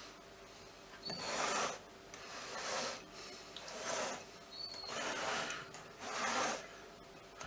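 Silicone spatula scraping and smoothing thick cheesecake cream in a metal springform pan: five separate rubbing strokes, roughly one a second. A faint short high chirp is heard twice.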